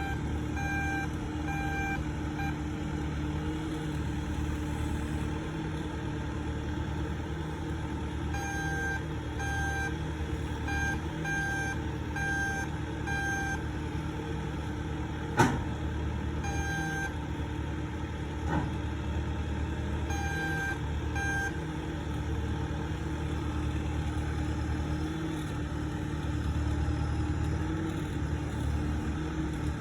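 Bobcat skid-steer loader engine running steadily while its reversing alarm beeps in several spells, about one beep a second, as the machine backs up. A single sharp knock rings out about halfway through.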